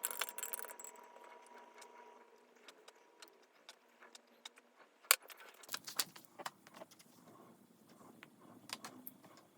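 Light clinks and clicks of small hard objects being handled. It opens with a ringing clink that fades over about two seconds, and a sharp click a little past halfway is the loudest.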